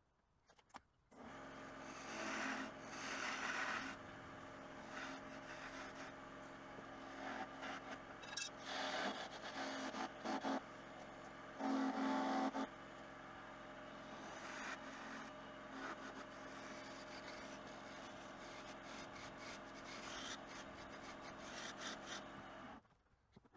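Wood lathe starting up and spinning a wooden rolling-pin blank with a steady motor hum, while a hand-held turning tool cuts the wood in several scraping passes, the loudest about halfway through. The lathe stops near the end.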